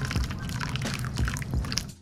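Water poured from a kettle's spout in a thin stream, the pour stopping near the end, over background music with a steady beat.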